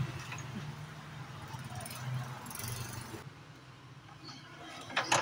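Quiet workshop background with a faint, intermittent low hum, then two sharp clicks near the end.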